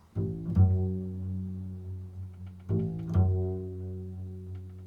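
Improvised instrumental music: low notes struck in pairs, each pair a note followed half a second later by a stronger one, ringing out and fading slowly; a second pair comes about two and a half seconds in.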